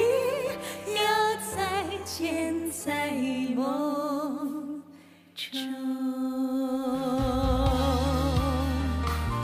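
Two women singing a slow duet with vibrato over band accompaniment. After a brief pause about five seconds in, they hold a long note while drums and bass come in underneath.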